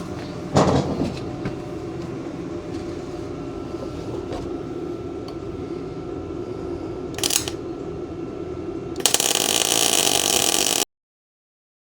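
MIG welder arc crackling while welding steel: a brief tack a little past seven seconds in, then about two seconds of steady welding that cuts off suddenly. Before that there is a steady background hum with one knock about half a second in.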